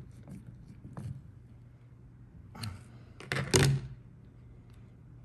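Small outboard carburetor parts handled on a workbench: a few light clicks, then a louder knock about three and a half seconds in.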